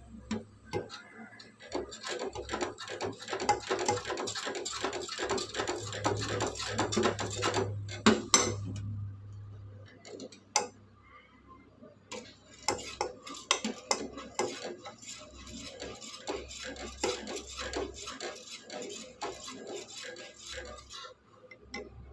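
A utensil beating rapidly against a bowl, as when mixing a pudding batter, in two long bouts of fast clinking with a short pause between them.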